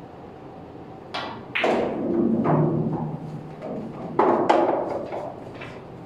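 Pool shot: the cue tip clicks on the cue ball about a second in, then a louder crack of ball on ball, followed by a rolling rumble of a pocketed ball running down the table's ball return. About four seconds in come a second cluster of knocks and a few lighter clicks as balls strike one another.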